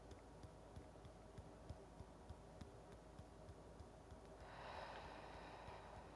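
Faint soft taps of fingertips on the upper chest, about two a second, and about four seconds in a breathy exhale lasting a second and a half.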